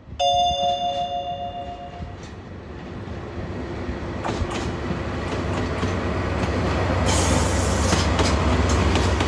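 DE10 diesel-hydraulic locomotive sounds a brief two-note horn blast lasting about two seconds, then its engine rumbles and grows steadily louder as it moves off with empty container wagons. A few clanks are heard midway, and a loud hiss joins for the last couple of seconds.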